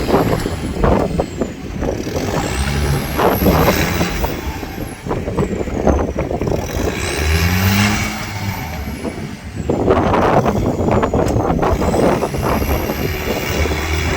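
Off-road 4x4 vehicle engine running and revving under load, with a faint high whine that rises and falls several times.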